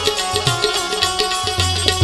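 Instrumental passage of a Gujarati devotional bhajan with no singing. Tabla plays a rhythm, its bass drum making falling glides, while a keyed bulbul tarang (Indian banjo) holds sustained melody notes.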